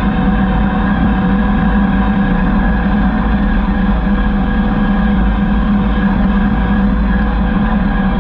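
Kubota SVL75 compact track loader's diesel engine running steadily at a constant speed, a continuous drone with a fixed pitch.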